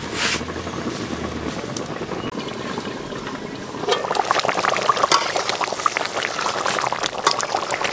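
Fish curry boiling in an open metal kadai, a dense run of bubbling and popping that grows louder from about four seconds in, once the lid is off. Before that there is only a steady background hiss.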